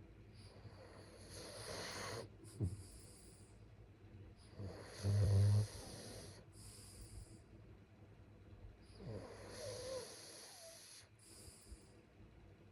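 A sleeping person snoring: slow noisy breaths about every four seconds, with one loud low buzzing snore about five seconds in. A brief sharp sound comes a little after two seconds.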